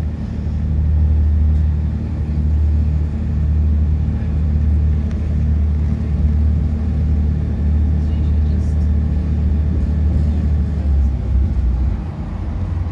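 Steady low drone and rumble of a South Western Railway Class 158 diesel multiple unit running along the line, heard from inside the carriage.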